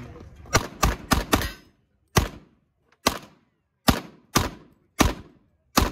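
Semi-automatic pistol firing about ten shots: a quick string of four in the first second and a half, then single shots spaced roughly a second apart.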